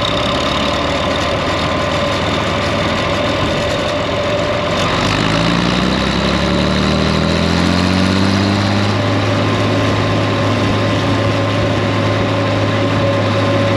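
John Deere 4010 tractor engine running steadily, its pitch rising over a few seconds about a third of the way in as it speeds up, then holding.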